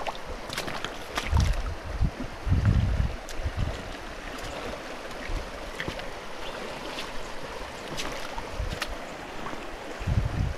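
A shallow, stony river riffle running, a steady rush of water over stones. Wind buffets the microphone with low rumbles a couple of times in the first few seconds and again near the end.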